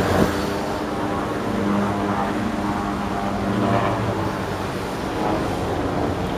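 Engines of display aircraft flying overhead, a steady drone holding one pitch.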